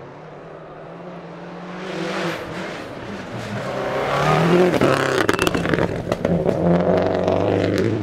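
Subaru WRX STI rally car's turbocharged flat-four engine at full throttle on a gravel stage, getting louder as it approaches, its revs rising and falling. Over the last few seconds, as it passes close, a rapid run of sharp cracks and clatter comes through over the engine.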